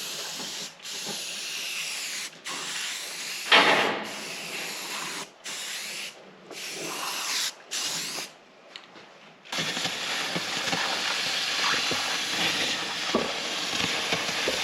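Aerosol spray can of direct-to-metal primer spraying in spurts of one to two seconds with short pauses between them. About two-thirds of the way through, a steady, fuller hiss without breaks takes over.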